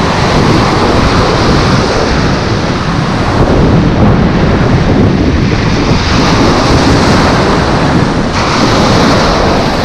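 Surf breaking and washing in foam around the wading angler, with loud wind buffeting the microphone, a steady dense rush.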